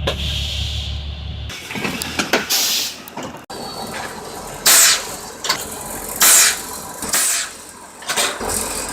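A bus's air brakes: a diesel engine idles at first. Then come several short, loud hisses of escaping compressed air as the parking brake is set and released, about five in all, the loudest two near the middle.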